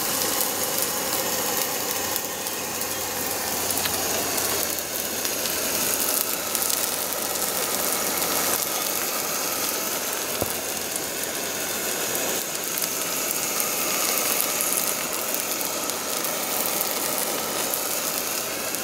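Portable gas stove burner hissing steadily under a pan of pasta, with the food steaming and crackling as it cooks.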